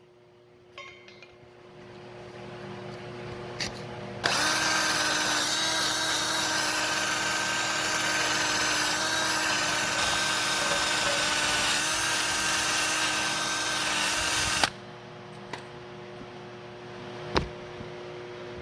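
Electric welder laying a bead on the steel self-leveling arm of a tractor loader: a steady hissing arc that starts abruptly about four seconds in, runs for about ten seconds and stops abruptly.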